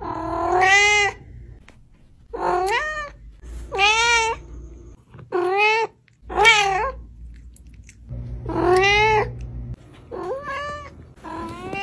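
A cat meowing, about eight meows in a row roughly a second apart, each rising and then falling in pitch.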